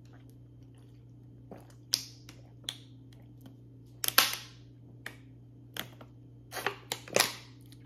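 Drinking from a thin plastic water bottle: a string of short gulps and crackles of the plastic, the loudest about four seconds in. A low steady hum runs underneath.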